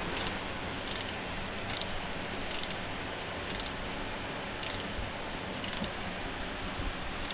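Wrench ratchet clicking in short bursts about once a second as the cylinder head bolts are turned down.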